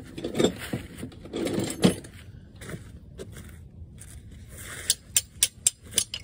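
Footsteps and rustling in dry leaves and dirt, then a quick run of sharp metallic clinks near the end as a wrench is handled against the old engine.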